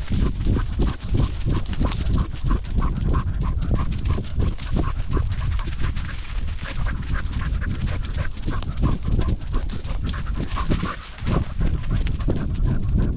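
Cocker spaniel panting hard as it runs, heard up close from a camera strapped to its back. Its breaths and footfalls come quickly and evenly, about four a second, over a low rumble of wind and movement on the microphone.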